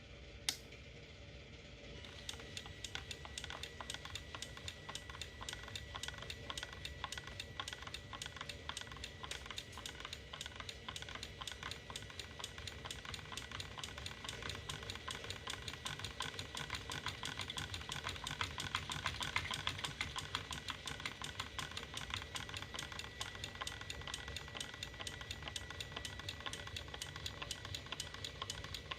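Small homemade PCB etching machine switching on and running: a single click, then from about two seconds in a fast, even rattle with a steady high hum.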